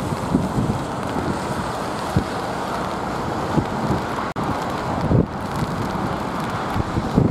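Gusty storm wind buffeting the microphone: irregular low thumps over a steady rushing noise, with a brief dropout a little past the middle.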